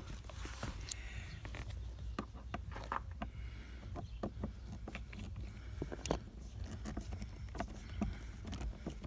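Scattered light clicks and taps of hands handling plastic interior trim, screws and caps in a car's center console, over a steady low rumble.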